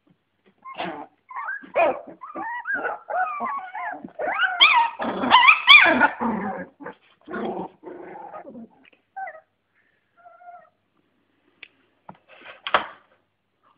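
Litter of 25-day-old American Staffordshire terrier puppies whimpering and yipping, many high, wavering cries overlapping for about six seconds, then thinning to a few faint whines. A short sharp knock near the end.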